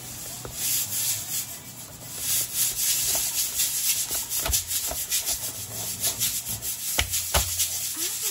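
Cleaver cutting through cooked crab shell and legs on a wooden cutting board: crackling, crunching scrapes from about two seconds in, broken by a few heavier knocks of the blade against the board, the loudest two near the end.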